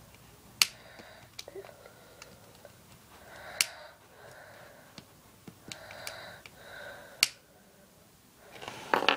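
Butane torch lighter (Jet 1300°C) being fired repeatedly: about five sharp ignition clicks, several followed by a brief hiss of the gas jet.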